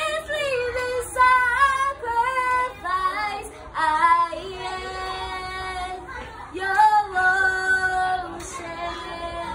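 A young girl singing solo in a strong voice, phrases sliding between notes, with long held notes about halfway through and again near the end.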